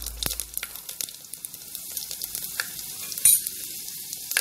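Cumin and fenugreek seeds sizzling in hot oil in an aluminium pressure cooker, with a fine hiss and scattered sharp crackles, one louder a little over three seconds in. This is the tempering (tadka) stage, the whole spices frying in the oil.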